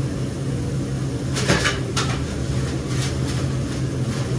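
Steady low hum of commercial kitchen equipment, with a few brief sharp clicks and rustles: the loudest about a second and a half in, another about half a second later, and fainter ones near three seconds.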